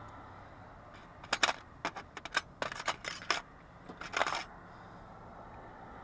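A quick run of sharp metallic clicks and clinks, about a dozen, from about one second in until four and a half seconds in. They come from the parts of a brass mortise lock cylinder being handled as it is taken apart for rekeying.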